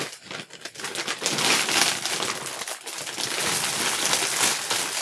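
Plastic packaging crinkling and rustling as a cellophane-wrapped pack of plastic zipper file pockets is pulled out of a plastic shipping bag.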